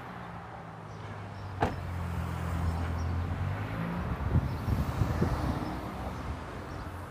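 Steady low hum of a car, louder for about two seconds after a click roughly one and a half seconds in, with a few light knocks near the end.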